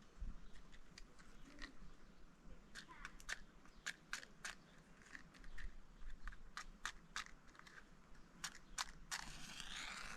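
Irregular small crisp clicks and crunches, several a second.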